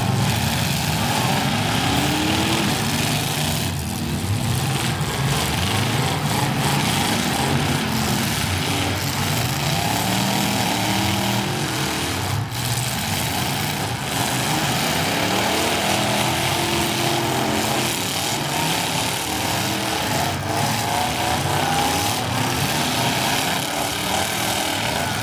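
Several demolition derby cars' engines revving hard together, their pitch rising and falling over and over as the cars push and ram one another.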